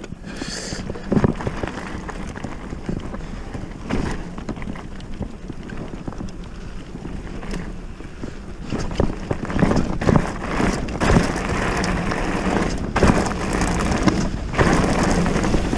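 Wind buffeting the microphone with a mountain bike's tyres rolling over a rough gravel trail, and irregular knocks and rattles from the bike over bumps. It gets louder about halfway through.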